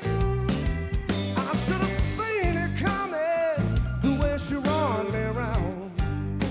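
A country band playing an instrumental break: drums keeping a steady beat under bass and rhythm guitar, with a lead melody bending and wavering over it from about a second and a half in.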